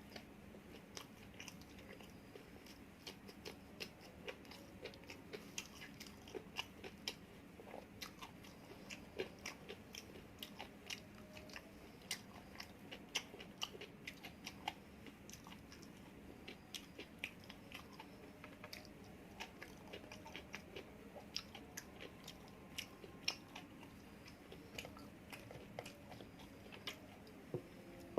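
A person biting and chewing food, with many small, sharp, irregular crunches and mouth clicks.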